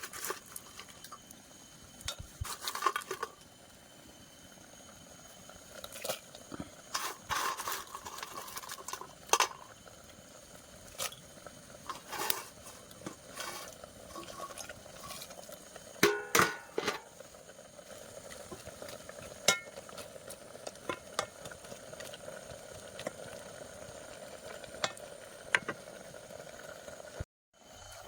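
Scattered clicks, clinks and knocks of objects being handled, over a faint steady hum that sets in about halfway. The sound cuts out completely for a moment near the end.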